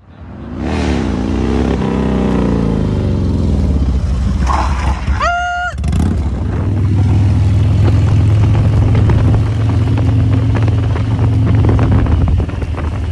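Motorcycle engine running on the road, its pitch rising and falling over the first few seconds, then settling into a steady low drone from about six seconds in. A brief higher tone sounds about five seconds in.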